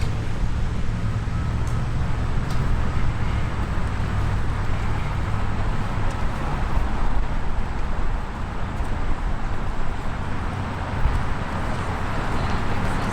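Steady road traffic noise: a continuous low rumble with an even hiss above it and no single event standing out.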